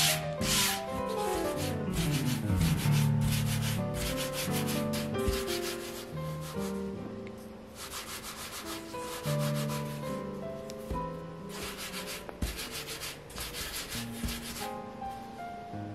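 Hands rubbing and rolling soft bread dough against a floured mat, heard as several spells of quick rubbing strokes. Piano background music plays underneath.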